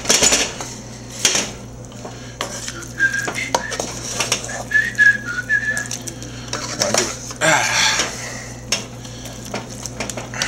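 Wooden spoon clacking and scraping against a metal pot while mushrooms and onions in a thick sauce are spooned over a roast, an irregular string of knocks and scrapes. A few short high tones sound near the middle.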